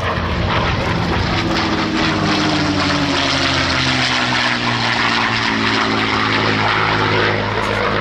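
P-51D Mustang's Packard Merlin V12 engine and propeller at speed during a flypast, its pitch dropping as the plane passes by partway through.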